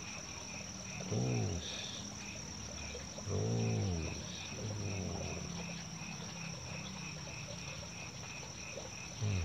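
Night chorus of frogs and insects: a steady high insect trill and rhythmic chirping about three times a second, with two louder low frog croaks, about a second and about three and a half seconds in.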